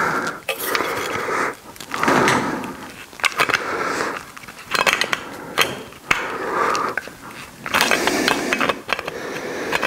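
Aviation tin snips cutting a thin sheet-metal repair patch by hand: a run of short crunching cuts roughly a second apart, each with sharp clicks as the jaws close through the metal.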